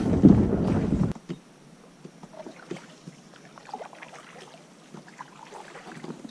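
A kayak's hull scraping and rumbling over rock for about a second as it is launched. Then quiet paddling follows, with the paddle dipping, water dripping and lapping, and faint small knocks.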